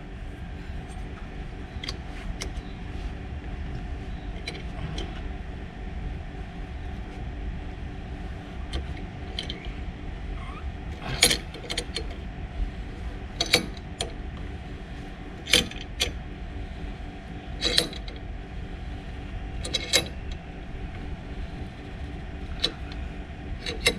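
C-clamp being screwed down to push a brake caliper piston back into its bore against an old brake pad, giving sharp metallic clicks, about one every two seconds from about halfway through, over a steady low hum.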